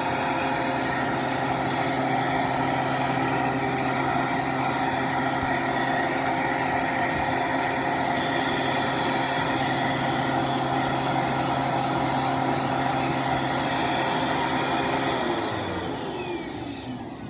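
Vacuum cleaner running steadily while vacuuming lint out of a clothes dryer. About fifteen seconds in it is switched off and the motor winds down with a falling pitch.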